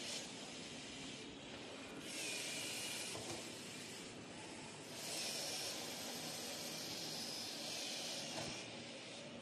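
Small electric gear motors of LEGO Mindstorms robots whirring as the robots drive along line-following tracks, heard as a hiss with a faint high whine that swells louder twice and eases off.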